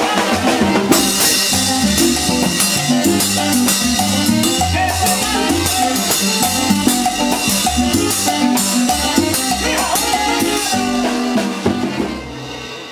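Live Latin tropical dance band playing, with drum kit and cymbals carrying the beat; the music falls away sharply near the end.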